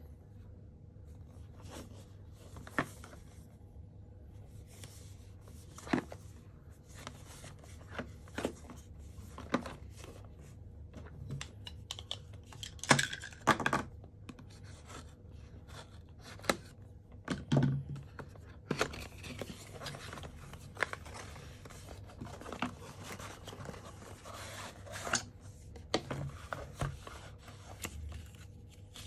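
A cardboard product box and its paper packaging being handled and opened: scattered taps, scrapes and rustles, with tearing of cardboard and paper. The loudest bursts come about 13 and 17 seconds in, over a faint steady low hum.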